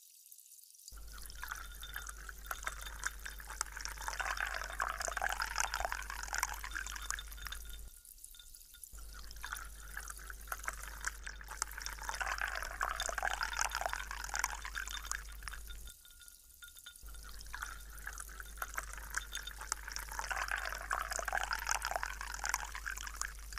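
Liquid poured into a glass over ice cubes, with a fine crackle throughout. There are three pours of about seven seconds each, each swelling and then easing off, with short breaks between them.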